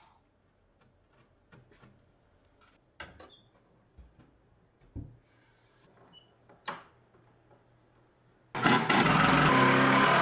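Light clicks and taps of metal lock hardware being handled and set against the oak chest, then, about eight and a half seconds in, a cordless impact driver runs loudly for under two seconds, driving a screw into the lock plate.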